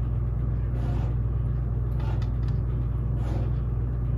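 A steady low rumbling hum, with faint scraping strokes about once every second or so: snow being shoveled, muffled from outside.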